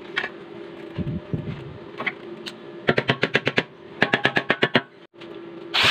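Two bursts of rapid metal tapping, about ten taps a second: pliers knocking slag off fresh stick-welds on steel flat bar. An angle grinder starts up loudly just before the end.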